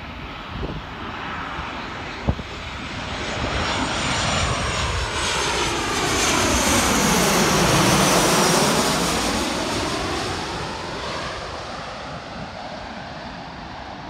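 Boeing 737-700's twin CFM56-7B turbofan engines on landing approach, passing low overhead. The jet roar swells to its loudest about eight seconds in, with a sweeping whoosh as the plane goes over, then fades as it moves away.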